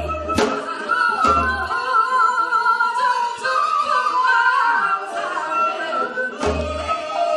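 Women's voices singing a Korean folk song (minyo) with a wide, wavering vibrato, accompanied by a few sharp percussive strokes.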